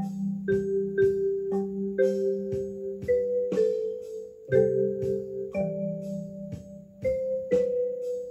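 Background music: held chords with a steady beat of about two strokes a second.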